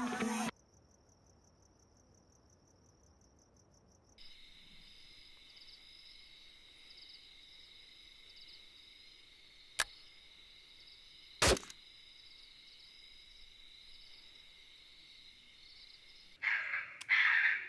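A single loud gunshot about two-thirds of the way through, with a fainter sharp crack a couple of seconds before it, over a steady high-pitched night drone. Background music cuts off half a second in, and louder sounds break in near the end.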